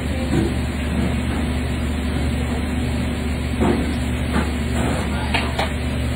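Steady low mechanical hum, with a few faint clicks and brief background voices.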